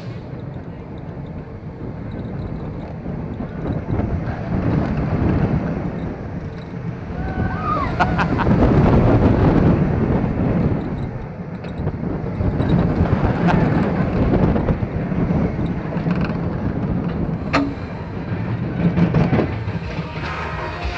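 Roller coaster ride heard from on board: the train rumbling along the track with wind noise on the microphone, swelling and easing several times, with a few sharp clicks.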